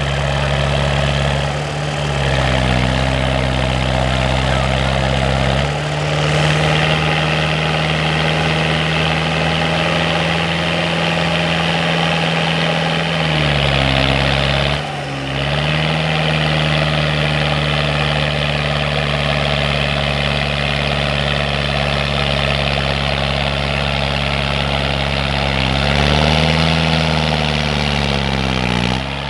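Off-road 4x4 engine running steadily under load while the vehicle is bogged in deep mud. Its pitch sags and recovers a few times, and the sound jumps abruptly a couple of times.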